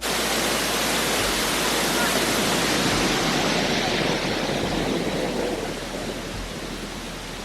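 Waterfall rushing: a steady, loud wash of falling water that cuts in suddenly and becomes a little quieter and duller in the second half.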